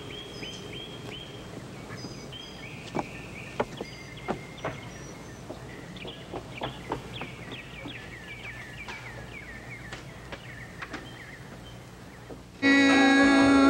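Birds chirping in short repeated calls over a steady outdoor hiss, with scattered footsteps. Near the end, music cuts in suddenly and loudly with a sustained chord.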